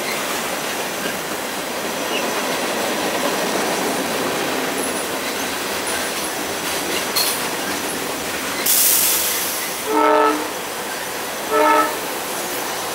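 Freight train of covered hopper cars rolling past on the adjacent track: a steady rumble and clatter of wheels on rail. About two-thirds of the way through comes a sharp hiss of air, then a train horn gives two short blasts, the signal that a train is about to move off.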